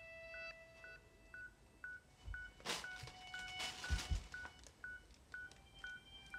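Steady electronic beeping, two short beeps a second, with held electronic tones sounding over it at times. There are a couple of rustling knocks near the middle.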